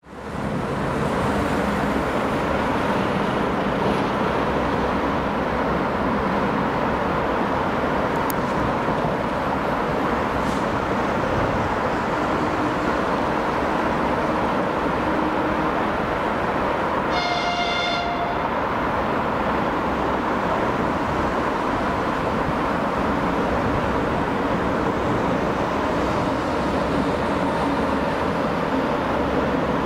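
Steady rumbling noise as an EP2K DC electric locomotive approaches with a passenger train, and one short, high-pitched horn blast of about a second just over halfway through.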